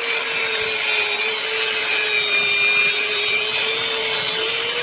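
Electric power tool running continuously, its motor pitch sagging a little under load in the middle and recovering near the end.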